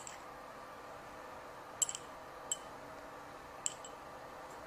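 Three light clinks of a metal spoon against a small ceramic bowl while saffron colour is spooned out, over a faint steady hum.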